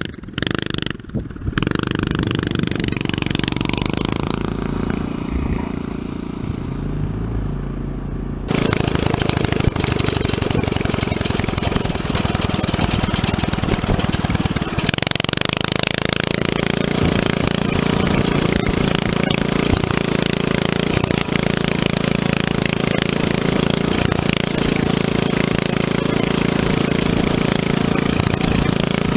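Coleman CT200U mini bike's 196cc single-cylinder four-stroke engine running as the bike is ridden, its pitch rising and falling with the throttle. About eight seconds in it turns much louder and closer, the engine right under the microphone with heavy wind rushing over it.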